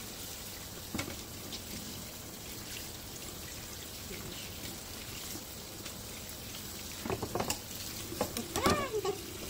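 Kitchen tap running into a stainless steel sink while a live crab's shell is scrubbed under the stream. About seven seconds in, louder scraping strokes and knocks from the scrub brush working the shell.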